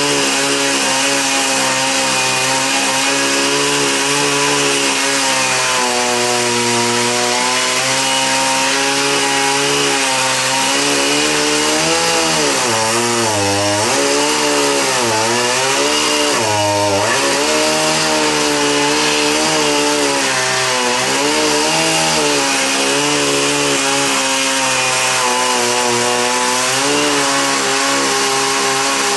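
Chainsaw running at high speed while carving a dead tree trunk. Mid-way through, the engine pitch sags and recovers several times as the chain bites into the wood under load.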